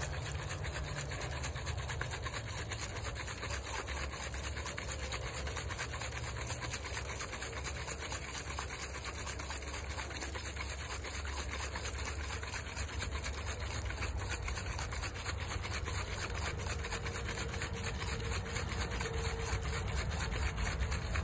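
Steady low road-noise rumble, with faint rubbing and handling from a hand-held mite-wash jar of bees in alcohol being swirled.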